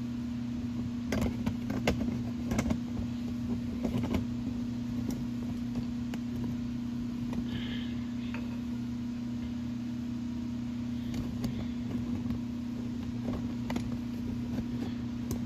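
Steady low hum of shop equipment, with a few sharp clicks and knocks of handling in the first four seconds and a few scattered ones later.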